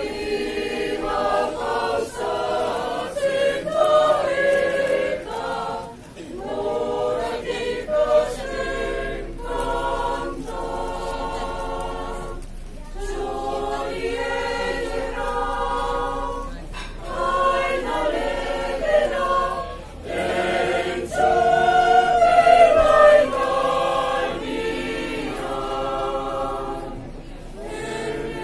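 Mixed choir of men's and women's voices singing unaccompanied in harmony, in phrases broken by short pauses for breath.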